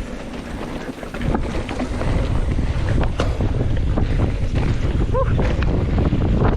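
Wind buffeting the camera microphone as a mountain bike gathers speed downhill, growing louder about a second in, with clicks and rattles from the bike over rough trail and a brief squeak about five seconds in.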